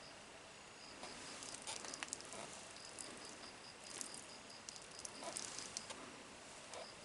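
An insect chirping in runs of even, high-pitched pulses about five a second, over a steady hiss of flowing stream water. Irregular light taps and ticks are scattered through it.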